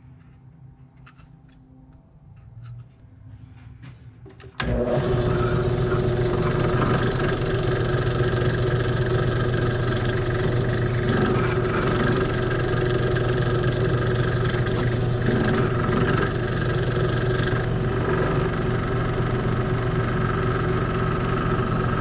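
Benchtop drill press switched on about four and a half seconds in, its electric motor running with a steady hum while a small bit drills holes through a black project box. Before it starts, a few faint clicks of the box being handled.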